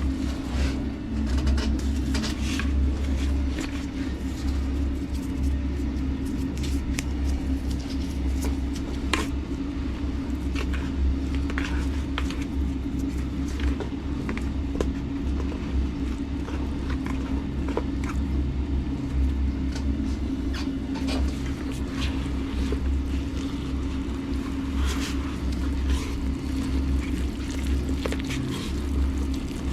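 Penetron waterproofing powder being mixed with water into a slurry: scattered scrapes and clicks from the stirring over a steady low rumble and hum.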